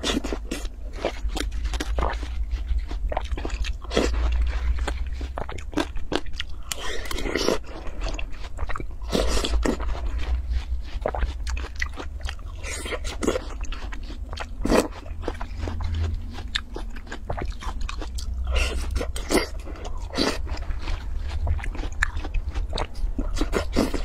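Watermelon being bitten and chewed close to the microphone: crisp, juicy crunches in quick succession, with a metal spoon scooping the melon flesh.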